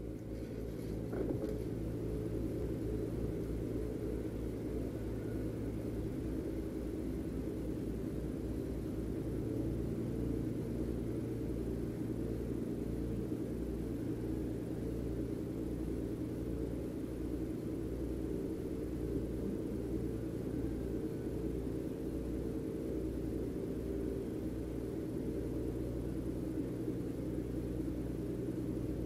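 A fishing boat's engine idling steadily: a low rumble with a regular throb.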